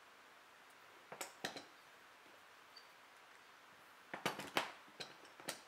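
Light knocks and clicks of metal F-clamps being handled and set down on a workbench. There are two about a second in, a quick cluster around four seconds in, and two more near the end.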